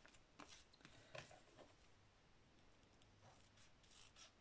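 Near silence, with faint rustling and small clicks of a sticker strip being handled, then a few soft scissor snips near the end as the strip is trimmed.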